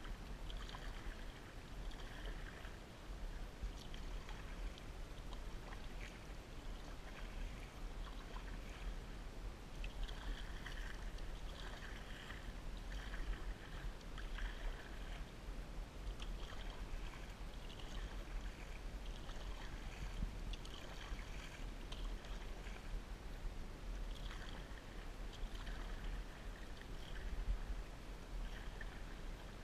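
Canoe being paddled: repeated paddle strokes swishing and splashing, with water lapping and trickling along the hull, coming irregularly every second or two over a steady low rumble.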